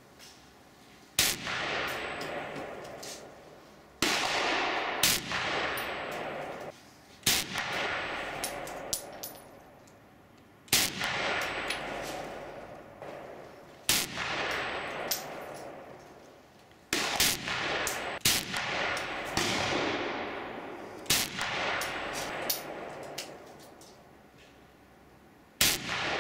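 Eight semi-automatic rifle shots from a Dragunov SVD, fired about three seconds apart. Each ends in a long echo that dies away over two to three seconds. A few sharp metallic clangs fall between the shots.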